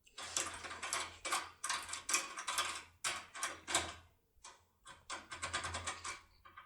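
Foil lockpick with a single foil strip being worked inside a FAC pin-tumbler cylinder lock: a quick, uneven run of metallic clicks and scrapes as the tool is jiggled and turned, with a faster patter of ticks near the end. The one-strip setup opens the cylinder quickly but tends to jump a little.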